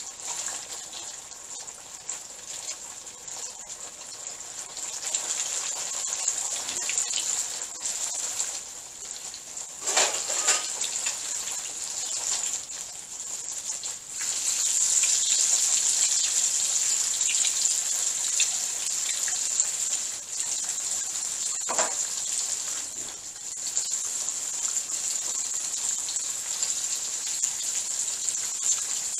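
Flour-and-cornstarch-coated chicken wings deep-frying in oil at about 350–375°F in a carbon-steel wok: a steady hissing, crackling sizzle that gets louder about halfway through as more wings go in. Two brief louder knocks stand out partway through.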